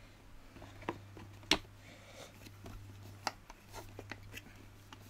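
Sharp plastic clicks and knocks from the Hoover Aquamaster's plastic top casing as it is handled and pressed down onto the body, about six taps spread irregularly, the loudest about a second and a half in, over a steady low hum.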